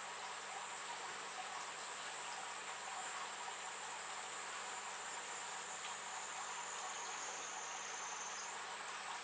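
Steady hiss with a thin, continuous high-pitched whine that sags slightly in pitch and then jumps back up near the end.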